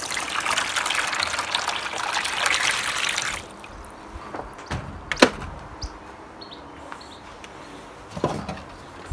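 Water running from a tap, shut off abruptly about three seconds in. Then a sharp click and, later, a softer knock.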